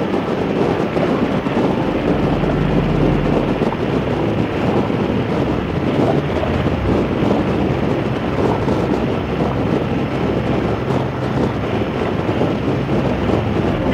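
Harley-Davidson V-twin motorcycle engine running steadily while riding along the road, with heavy wind rush on the microphone.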